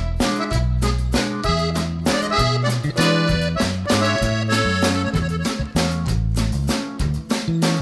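Background music led by an accordion, with a steady, bouncy beat.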